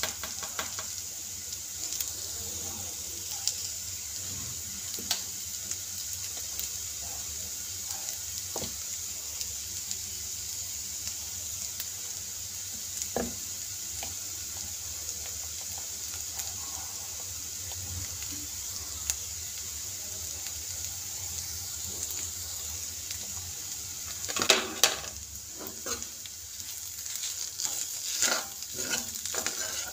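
Diced potato mixture frying in a shallow metal pan, a steady high sizzle with occasional light knocks of a utensil on the pan. About 25 seconds in and again near the end, louder bursts of stirring and scraping against the pan.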